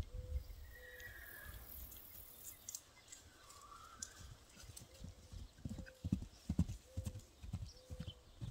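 Hoofbeats of a young Appaloosa filly moving over dry, hard pasture ground, a run of low thuds about three a second in the second half. In the first half, a horse whinnies faintly twice.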